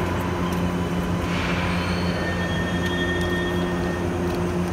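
Steady mechanical hum of an underground light-rail station, with a faint, thin high-pitched whine about two seconds in.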